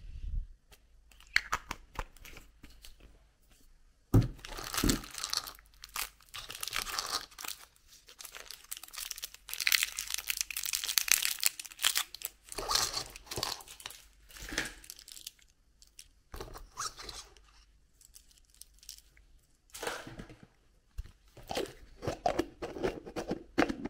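Thin plastic candy wrappers crinkling and tearing as small sweets are unwrapped by hand, in spells of a few seconds with quieter pauses between, mixed with light clicks of handled plastic.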